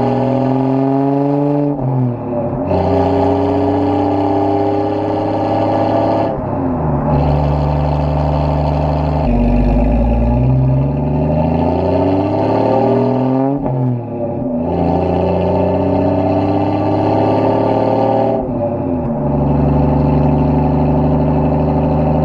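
Straight-piped exhaust of a manual Jeep Cherokee accelerating up through the gears. The engine note climbs steadily in each gear, then drops with a brief lull at each of about four shifts. It is heard through a waterproof camera case mounted on the back of the Jeep.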